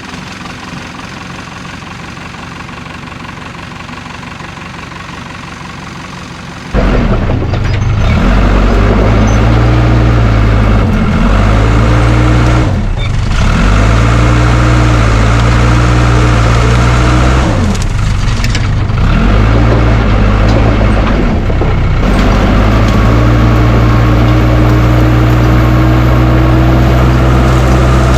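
Case 550G bulldozer's diesel engine idling, then throttled up sharply about seven seconds in. It runs loud, with its pitch sagging and recovering four times, then holds steady near the end.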